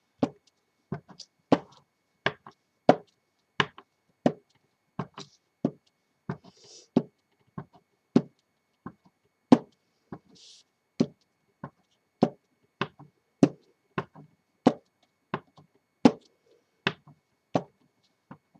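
A rubber stamp on a clear acrylic block knocked down again and again onto an ink pad and onto card stock, a sharp tap about one and a half times a second, with a brief rustle twice.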